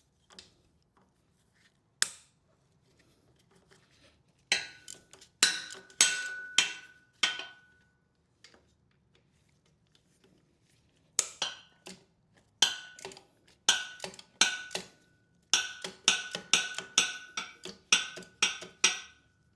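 Metal hand tools working on engine-to-transmission bell housing bolts: sharp metallic strikes, each with a short ring, about two or three a second. They come in two runs, one a few seconds in and a longer one from about halfway to near the end.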